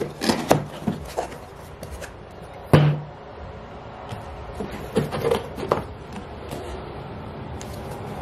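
Cardboard boxes being handled: flaps rubbed and knocked as a small boxed figure is taken out of a shipping box. Scattered light knocks, with one sharp thump a little under three seconds in and a few smaller knocks around five seconds.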